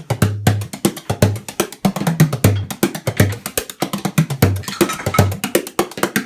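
A 13-inch tunable twelve-sided Rohan Young bodhrán played with a brush tipper: a quick, even stream of strokes, several a second, with deep notes alternating with higher ones.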